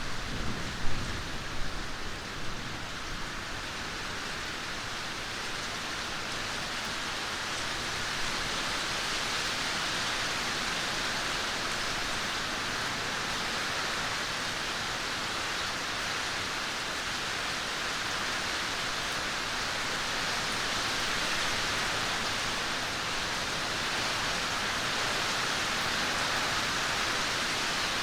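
Steady rainfall, an even hiss of rain on surfaces. In the first few seconds a few low, louder rumbles rise over it and fade.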